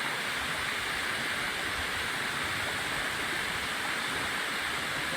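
Tall waterfall pouring into its pool: a steady, even rush of falling water.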